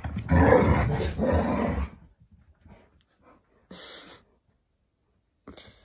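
Alaskan malamutes play-fighting, growling and grumbling in a rough, noisy rumble for about two seconds, followed by a few brief, quiet scuffling noises.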